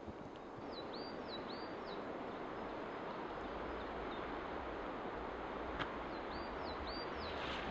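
Forest ambience: a steady rushing background, with a small bird calling a quick run of short high hooked notes twice, and a single click near the end.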